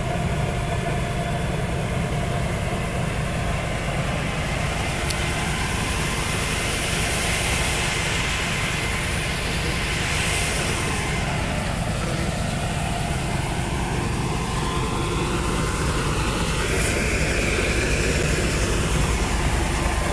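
New Holland combine harvester's engine and machinery running steadily: a low drone with a rushing noise above it.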